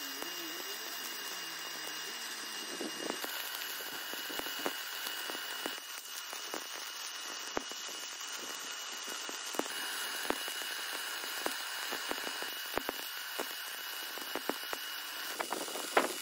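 Stick (MMA) welding arc run from a Migatronic Focus 161 DC inverter: a steady hissing crackle with scattered sharp pops of spatter and a thin steady high whistle underneath. The crackle grows louder and busier near the end.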